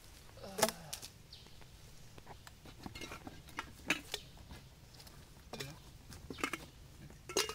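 Handling noise from a plastic pipe and a cardboard box being moved and set down on the forest floor: a handful of separate sharp knocks and clatters over a low background, the loudest about half a second in.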